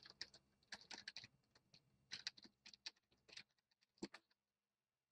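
Faint, irregular clicking and tapping of a computer keyboard and mouse, with a slightly stronger click about four seconds in.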